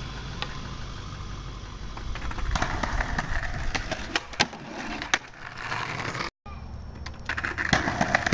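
Skateboard wheels rolling over pavement, with a few sharp clacks of the board near the middle. The sound cuts out for an instant a little after six seconds in, then the rolling resumes.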